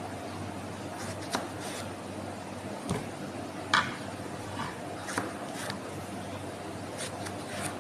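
A kitchen knife cutting through tomatoes on a plastic cutting board, with irregular knocks of the blade on the board, the sharpest a little under four seconds in. A steady low hum runs underneath.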